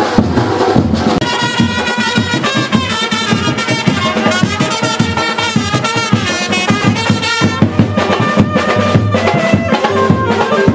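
Loud traditional band music: a wavering melody, likely on brass horns, over fast, steady drumming.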